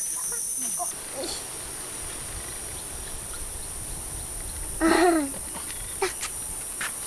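Steady high-pitched drone of insects, with a short high voice call from a young girl about five seconds in and a few light clicks near the end.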